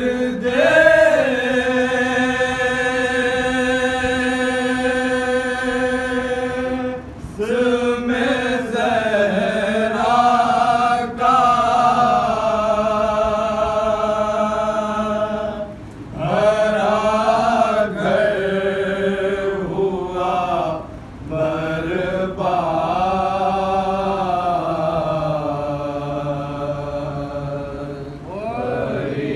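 Men chanting a noha, a Shia mourning lament, unaccompanied, in long held notes with a slightly wavering pitch. The phrases run several seconds each, with short pauses between them.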